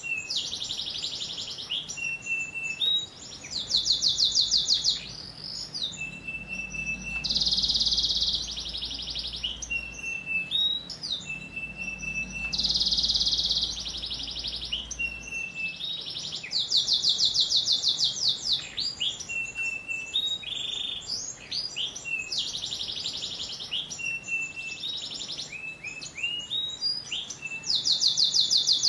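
Domestic canary singing a long, unbroken song. Fast trills and rolls, loudest every few seconds, alternate with short level whistled notes.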